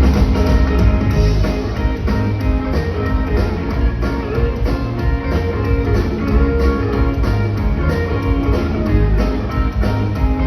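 Live band music: guitar over bass and a steady drum beat.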